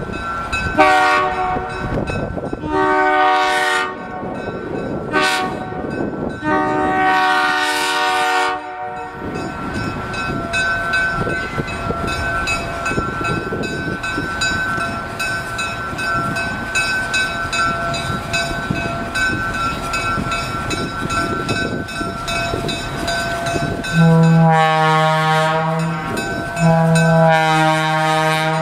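Diesel locomotive horn blowing four blasts, long, long, short, long (the standard grade-crossing pattern). Then comes a steady rumble of a diesel train on the move, with wind. Near the end, two louder, deeper long horn blasts sound from the Nickel Plate Road GP9 514 as it draws close.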